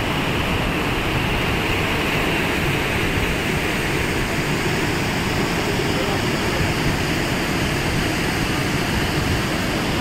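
Steady roar of a large waterfall in monsoon flood, a cascade of heavy water falling about 50 feet, heard close up.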